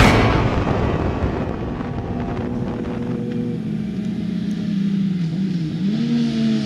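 Sport motorcycle engines running at speed on a racetrack. The engine note holds fairly steady, then dips and rises again near the end.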